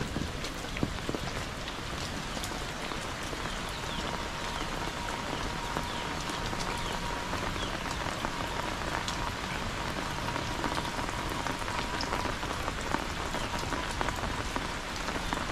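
Heavy rain falling steadily, a continuous hiss dotted with many close individual drop hits.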